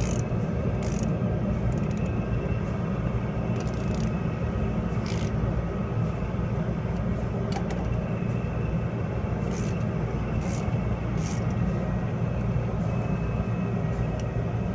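Steady low mechanical hum, with occasional single light metallic clicks as a wrench is worked on the brake's adjustment nuts.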